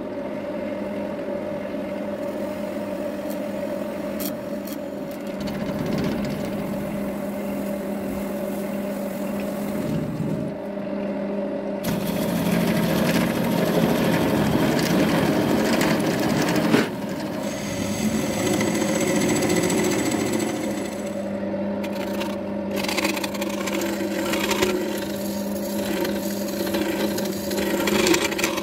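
Wood lathe running with a steady motor hum while a spiral drill bit bores into the end of a spinning wood-and-epoxy-resin blank, then a hollowing tool cuts inside it. The cutting noise grows louder midway, stops suddenly, and builds again near the end.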